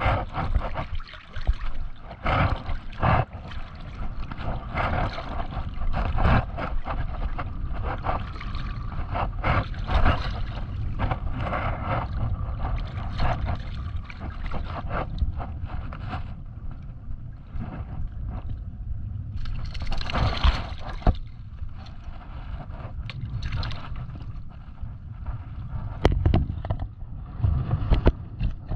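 Seawater sloshing and splashing close to the microphone, in uneven bursts, with a steady low rumble of wind on the microphone underneath; a louder splash comes about twenty seconds in.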